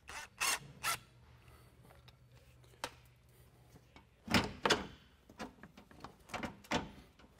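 Corrugated plastic hose being handled and pushed into place against the vehicle: scraping and rubbing sounds, a couple of short ones near the start and a quick series of louder rubs in the second half.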